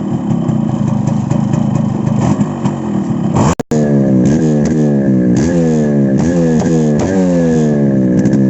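Yamaha RX135 two-stroke single-cylinder motorcycle engine through its stock silencer, running steadily. After a short break about three and a half seconds in, it is revved again and again, its pitch rising and falling with each blip.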